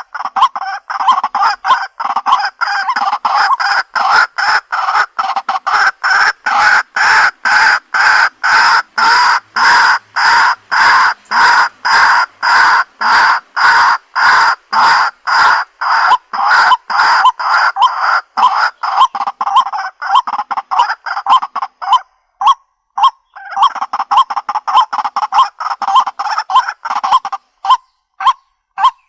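White-breasted waterhen calling: a long run of loud, repeated 'ruak-ruak' notes at about two a second. The run breaks off about two-thirds of the way through, picks up again briefly, then thins to scattered single notes near the end.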